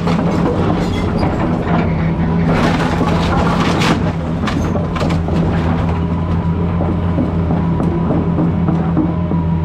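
A 200-size excavator's diesel engine running steadily under load while it demolishes a house, with knocks and crunches of breaking debris that are thickest about three to four seconds in.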